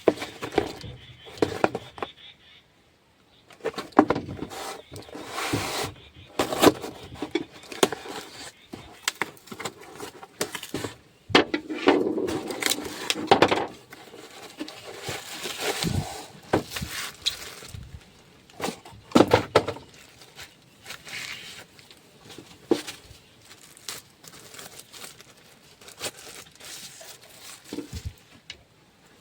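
Packaging being handled and opened: irregular crinkling, tearing and sharp clicks and knocks of a box, wrapping and knife being handled.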